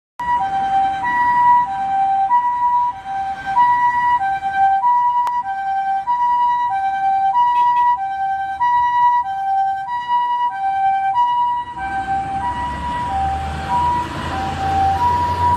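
Ambulance two-tone hi-lo siren, switching evenly back and forth between a higher and a lower note, each held a little over half a second. About twelve seconds in, a loud rumble and hiss of vehicle and road noise comes in under it.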